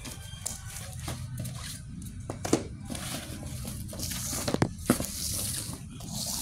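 A cardboard shipping box being torn open and unpacked: cardboard and packing tape tearing and rustling, with several sharp knocks as the boxed bowls are handled and set down on a tile floor.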